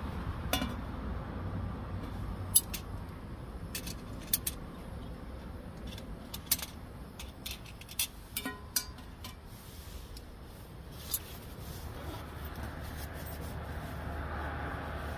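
Scattered light clinks and clanks of aluminium camping cookware being handled, a frying pan and pot lid knocked against the pot on a camping stove, one clank near the middle ringing briefly. A low steady rumble of road traffic runs underneath.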